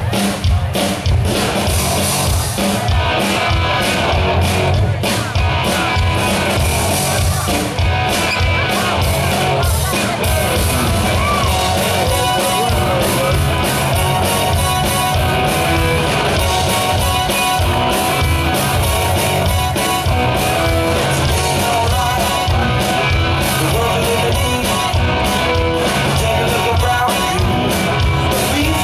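Live party band playing rock music, with a steady drum beat.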